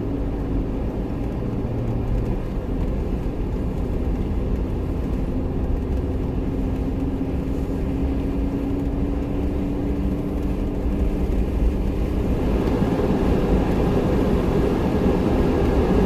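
Jeep engine running steadily, a low rumble with a droning tone that slowly rises in pitch, getting louder over the last few seconds.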